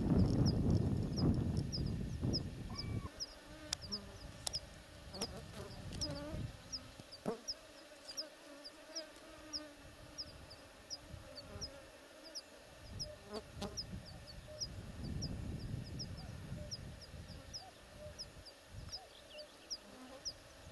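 Outdoor meadow ambience: a short high chirp repeats about three times a second throughout, over a low rumble that is strongest in the first three seconds and swells again in the second half, with a few sharp clicks.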